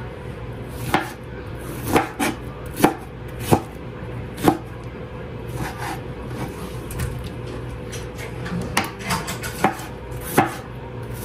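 Chef's knife cutting fresh tomatoes on a plastic cutting board: uneven sharp knocks of the blade striking the board, about a dozen, bunched in the first half and again near the end.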